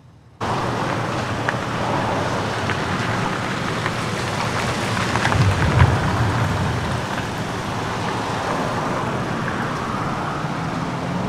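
Steady rushing background noise with a low hum and a few faint ticks. It starts abruptly a moment in and swells slightly around the middle.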